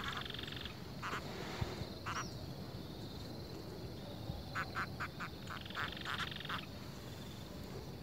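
A frog croaking from the waterside: short rasping calls, a few spaced out at first, then a quick run of them about halfway through.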